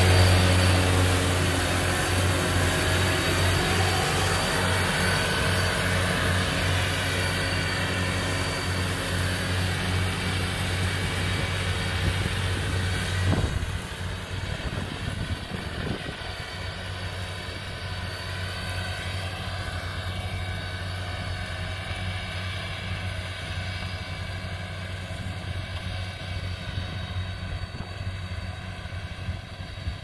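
A large farm machine's engine running with a steady deep hum that slowly fades. About 13 seconds in, the sound changes suddenly: the deep hum drops away, leaving a quieter engine drone.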